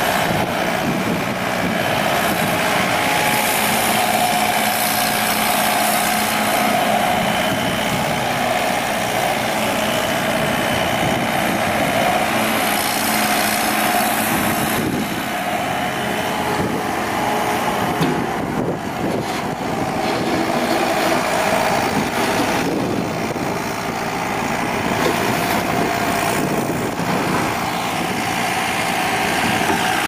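Diesel engine of a 2006 Komatsu SK1020-5N skid steer, a Yanmar 3.3-litre four-cylinder, running steadily, its sound shifting a little now and then.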